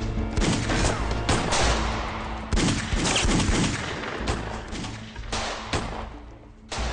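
Gunfight: pistol shots fired one after another at irregular intervals, over steady background music.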